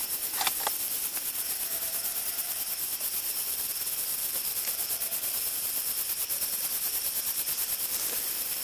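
Evening insect chorus of crickets, a steady high-pitched, fast-pulsing trill, with a couple of small clicks about half a second in.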